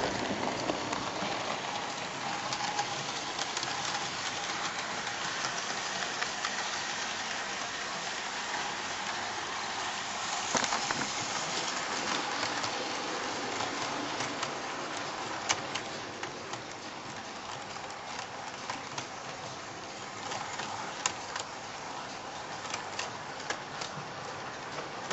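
00 gauge model train, a Hornby Battle of Britain class locomotive hauling six coaches, running on the layout track: a steady rattling whirr of wheels and motor, with sharp clicks as the wheels cross rail joints. It grows somewhat quieter after about fifteen seconds.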